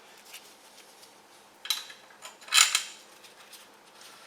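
Metal parts and tools clinking while a bolt fitted with a new copper sealing washer is started by hand on the engine's injector fittings: two short clinks, the second louder, among faint ticks.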